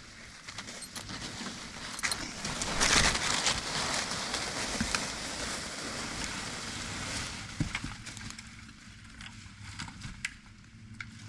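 Small Bosch electric chainsaw with a badly dull chain rasping at a branch. It grinds for several seconds, loudest about three seconds in, and barely bites into the wood, then eases off. Scattered sharp clicks and knocks of the saw against the wood run through it.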